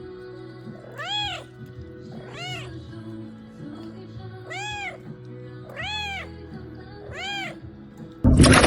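A cat meowing five times, each meow rising and then falling in pitch, over faint background music. Near the end a sudden loud rushing noise cuts in.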